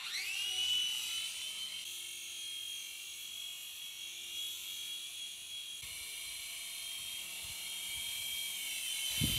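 Toy radio-controlled helicopter's small electric rotor motors whining: they spin up suddenly, rising in pitch, then settle into a steady high whine as it flies. The pitch shifts slightly about six seconds in, and there is a low thump near the end.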